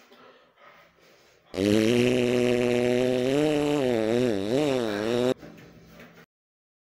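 A long buzzing fart lasting about four seconds, low and steady at first, then wobbling up and down in pitch before cutting off abruptly.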